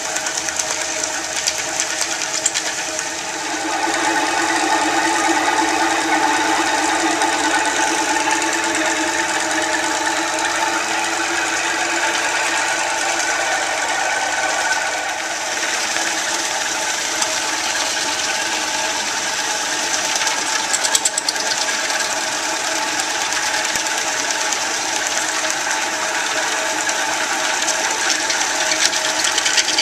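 Rose Mfg. 20-inch Rociprolap vibrating flat lap running with a load of rock specimens in grit slurry: a steady, fast mechanical buzzing rattle, louder from about four seconds in.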